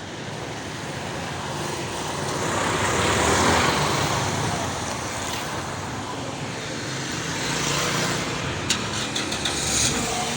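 Street traffic: vehicles passing, a steady road noise that swells about three seconds in and again near eight seconds, with a few sharp clicks near the end.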